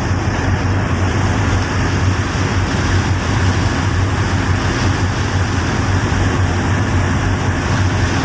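Steady low engine-like hum with a constant rushing noise over it, unchanging throughout.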